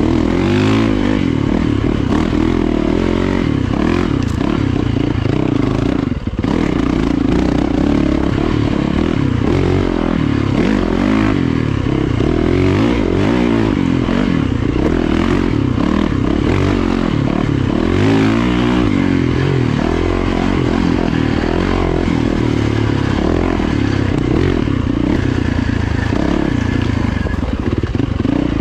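Yamaha dirt bike engine pulling hard on a woods single-track, revs rising and falling continuously with the throttle, with a brief throttle-off dip about six seconds in.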